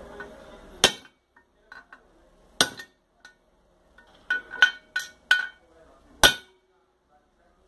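Sharp metallic hammer blows on a motorcycle engine's aluminium crankcase, driving a gearbox bearing into its seat. There are about seven strikes: two spaced apart, a quick run of four, then one more. The wooden bench under the case is soaking up the blows, so the bearing is slow to go in.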